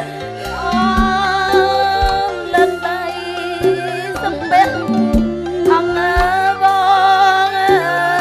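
Khmer Basak theatre music: a woman sings a wavering, ornamented melody over the traditional ensemble, with sharp drum strikes here and there and held low notes underneath.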